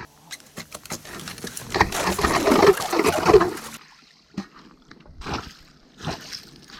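Hand ice auger cutting through thin ice, crunching and scraping as it churns up ice chips and slushy water. The grinding stops suddenly a little under four seconds in, and a few scattered knocks follow.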